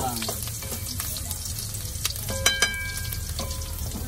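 Minced garlic sizzling and crackling as it sautés in hot oil in a wok, stirred with a wooden spatula. Two sharp clinks about two and a half seconds in.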